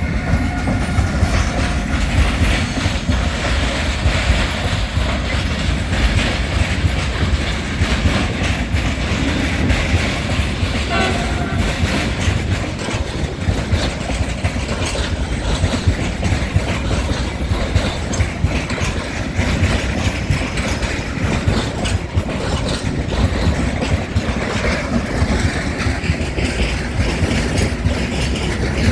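Freight train of Eas open wagons rolling past, a steady loud rumble with wheels clattering over the rail joints. A horn note dies away in the first second.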